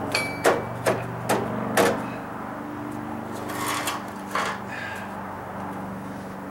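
Four sharp knocks in quick succession, then a couple of softer scraping clatters, as deck flashing and hand tools are handled against deck tiles and a wooden stair tread. A steady low hum runs underneath.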